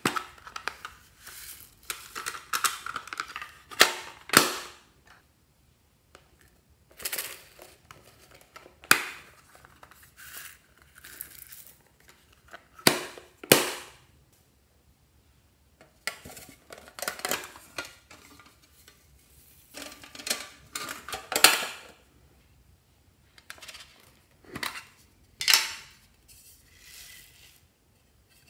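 Handling of a plastic pencil case and a metal tin: irregular sharp clicks, knocks and taps, with short rattles of small beads and sprinkles being shaken out into glass dishes of glue, separated by quiet gaps.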